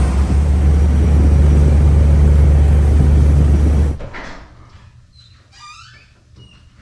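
Boat engine running steadily at speed with a deep rumble and rushing noise, cutting off suddenly about four seconds in; then much quieter, with a brief high wavering call.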